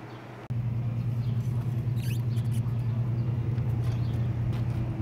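MerCruiser four-cylinder inboard engine with an Alpha One sterndrive running steadily on a garden-hose water supply, test-run after a new water-pump impeller. The low, even hum comes in suddenly about half a second in.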